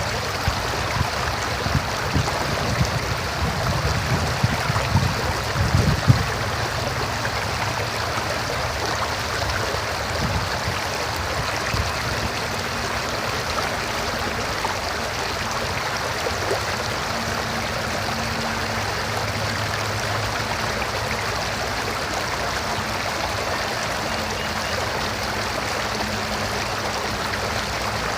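River water rushing and gurgling steadily over rocks, with a few low thumps in the first few seconds.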